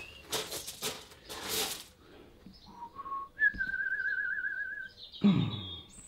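A few light clicks and clinks of handling, then someone whistling: two short low notes followed by a longer warbling note. A short low sound comes near the end.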